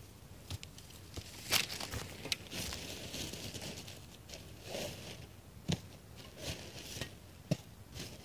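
Clothing rustling and crinkling close to the microphone with scattered sharp clicks and knocks, as someone gets dressed.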